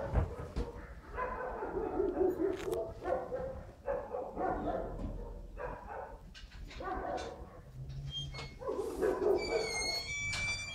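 A pet animal whining in a run of about six drawn-out calls, each bending down and back up in pitch, with a short high squeak near the end.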